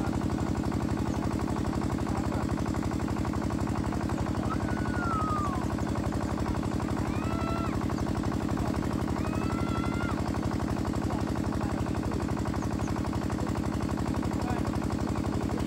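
A small engine running steadily at constant speed, with a rapid, even chugging. A few short falling whistles sound over it about a third and halfway through.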